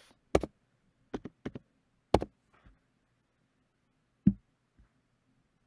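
Computer keyboard keystrokes and mouse clicks. A quick run of sharp clicks comes in the first two seconds, then a single click about four seconds in.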